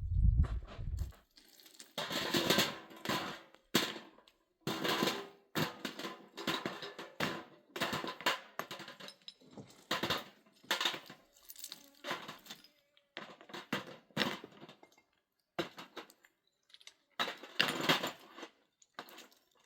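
Repeated rough scraping and clattering strokes, each lasting about half a second to a second, with short pauses between them.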